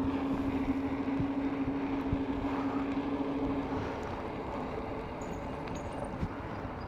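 Electric bike's motor whining at a steady pitch over tyre and wind noise while riding, the whine cutting out a little over halfway through as the bike eases off, leaving the rolling noise.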